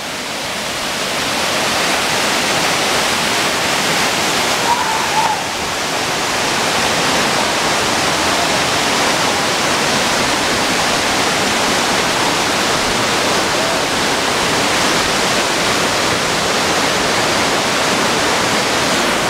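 Waterfall: a steady, loud rush of water falling onto rock, growing a little louder over the first two seconds.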